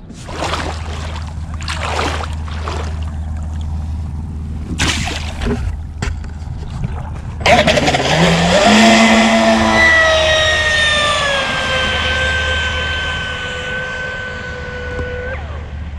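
ProBoat SonicWake 36" RC boat's 6S brushless motor and three-blade prop starting suddenly about halfway through, whining up in quick steps, then running at speed with its pitch sliding slowly down before cutting off near the end. Before it, a rushing noise with a few short knocks.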